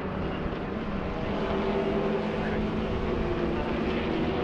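Porsche 906 race car engine running steadily on track at an even pitch.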